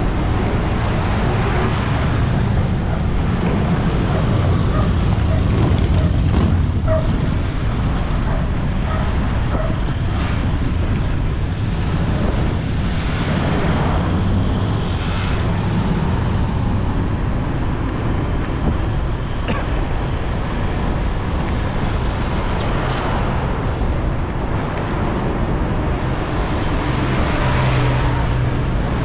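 Road traffic heard from a bicycle riding along a road: a steady low rumble of noise with vehicles swelling past now and then.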